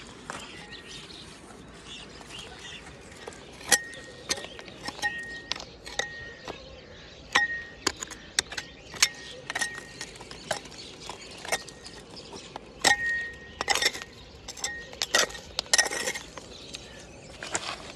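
Steel knife blade digging and scraping into dry, pebbly soil, striking stones: irregular sharp clinks, many with a brief metallic ring, beginning about four seconds in.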